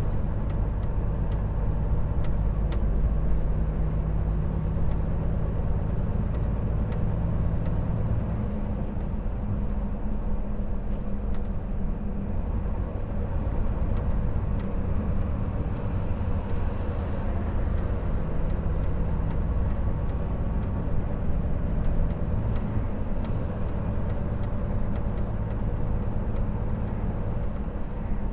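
Volvo FH 460 truck's 13-litre straight-six diesel running under way, with steady road and tyre noise. The engine note shifts in pitch a few times.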